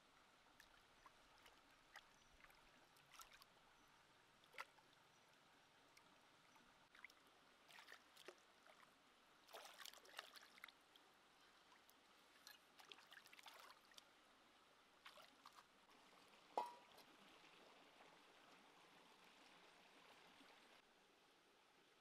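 Faint splashing and dripping of shallow stream water as a skinned snake is rinsed and rubbed by hand, with small scattered splashes, a busier patch of splashing about ten seconds in, and one sharper plop later on.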